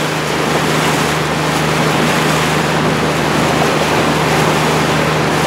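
Motorboat engine running steadily with a low hum, over the rush of water and wind.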